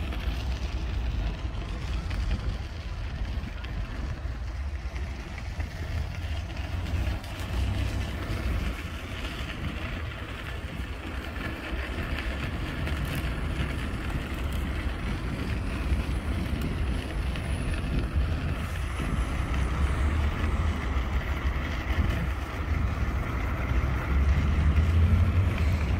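Wind buffeting the microphone in a low, uneven rumble, over a steady hum of distant city traffic. The wind rumble swells louder near the end.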